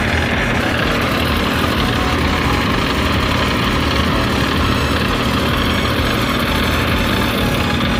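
Heavy diesel engine of construction machinery running steadily.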